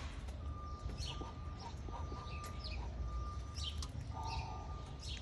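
Birds chirping: short, falling chirps repeated every second or so, over a steady low hum.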